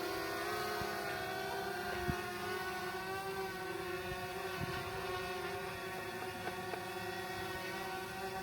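Quadcopter camera drone hovering in position hold, its propellers giving a steady, even-pitched whine, with a light click about two seconds in.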